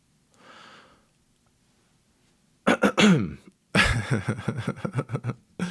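A man's wordless vocal reaction: a soft breath, then about two and a half seconds in a loud vocal sound falling in pitch, followed by a run of rapid pulsing vocal sounds lasting about a second and a half.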